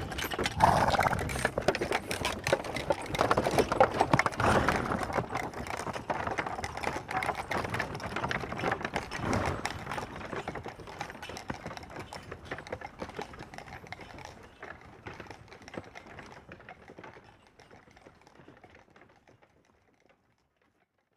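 Horse hooves clopping, a dense run of quick hoof strikes that fades away gradually and dies out near the end.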